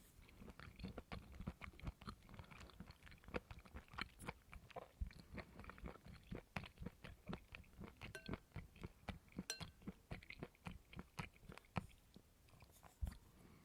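Close-up chewing of coconut flesh: a run of short, wet crunching chews, about three a second, that stops near the end with one last bite.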